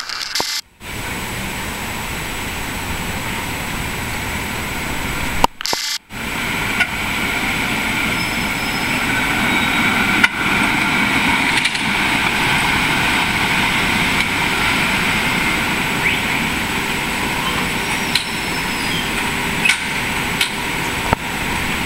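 Electric PCC streetcar running along the rails. Its steady running noise, with a faint high whine, builds to its loudest about halfway through as the car passes close, then eases a little as it draws up at the platform. The sound drops out twice briefly in the first six seconds.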